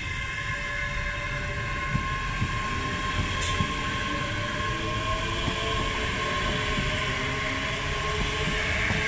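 ScotRail electric multiple-unit train running past along the platform, with a steady electric motor whine over the rumble of wheels on the rails. A brief high click sounds about three and a half seconds in.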